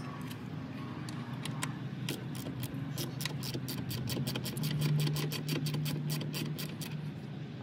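Hand ratchet wrench clicking as it turns out the door-hinge nut on a Jeep Wrangler JK. A quick run of clicks starts about two seconds in and stops shortly before the end, over a low steady hum.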